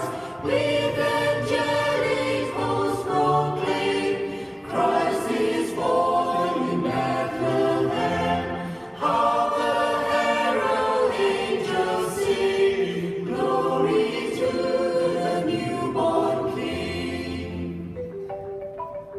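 A mixed choir singing a Christmas carol, in several parts with sustained notes. The singing fades and thins toward the end.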